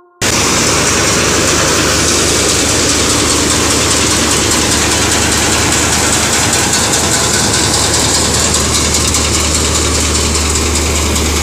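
Tractor-driven grain thresher running at full speed, its drum threshing sheaves fed in by hand: a loud, steady mechanical rush over the low, steady hum of the tractor engine that drives it.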